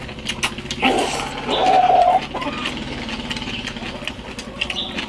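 Two people eating from rice bowls: chewing and mouth noises, with short clicks of chopsticks against bowls, over a steady low hum like a running motor. A louder pitched sound about a second in lasts roughly a second.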